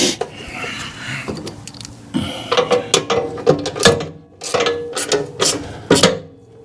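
Ratchet wrench clicking in short runs, with metal clinks, as the 13 mm bolts on a snowblower's chain-case cover are tightened.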